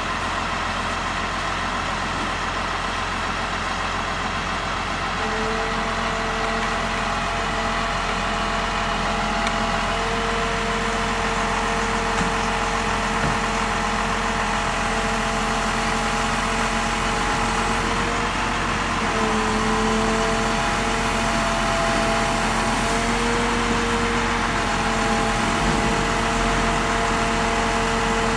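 An engine running steadily, its hum wavering slightly in pitch.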